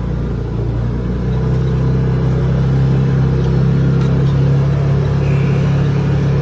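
Can-Am XMR HD10 side-by-side's V-twin engine pulling steadily under load on a climb, its note firming up and growing a little louder about a second in.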